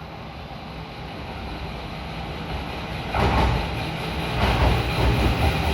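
Electric train approaching along the track and growing steadily louder. About three seconds in it turns into a much louder rumble and rush as the train draws level, with a second surge about a second later.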